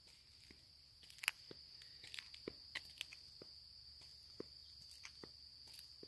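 Footsteps on a trail, soft irregular steps and small clicks, over a steady high-pitched insect trill.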